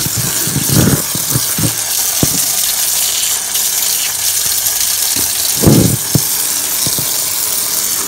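Water from a garden hose pouring onto dry bread cubes in a plastic basin to soak them: a steady rush of water, with a few dull knocks about a second in and again near six seconds.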